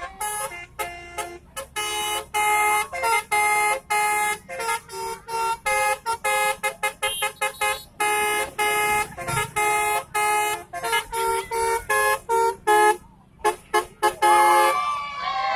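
Bus 'telolet' multi-tone horn playing a melody: a run of short honked notes and longer held chords with brief gaps between them, stuttering quickly in places.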